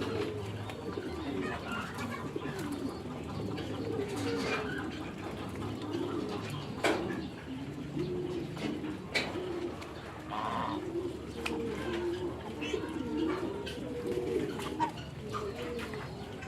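A flock of birds calling continuously, many low, wavering calls overlapping one another. A couple of sharp clicks or knocks cut through, about seven and nine seconds in.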